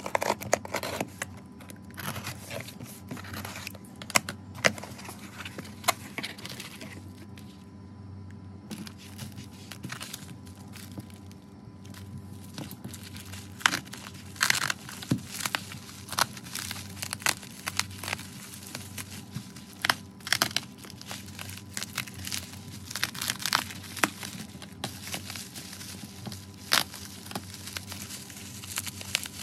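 Box cutter slitting the packing tape on a cardboard parcel, then bubble-wrap packaging crinkling and crackling as it is handled and unwrapped.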